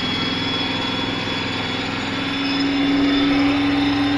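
Classic 4x4 fire truck's engine running under load as the truck drives along, heard from inside the cab. It holds a steady tone that grows stronger about two and a half seconds in.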